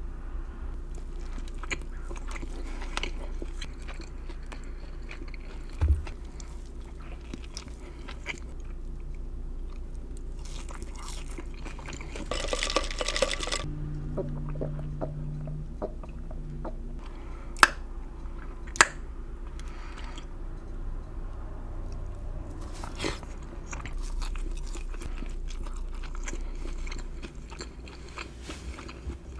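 Close-miked eating of salmon sliders: repeated biting and chewing with wet, crunchy mouth sounds and small irregular clicks. Two sharp clicks come a little past halfway.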